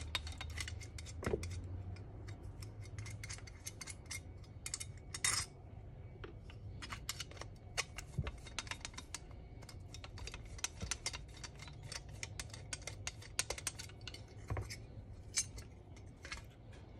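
Rapid small metallic clicks and ticks of a screwdriver backing out long screws from an Autolite 2100 carburetor, with loose metal parts clinking as they are handled. A low steady hum runs underneath.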